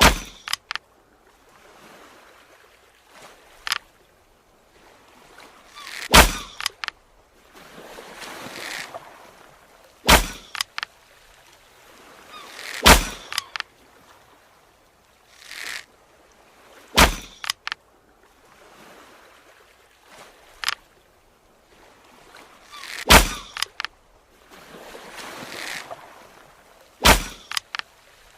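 Bow-and-arrow sound effects: a string of sharp strikes a few seconds apart, several of them led in by a swelling whoosh.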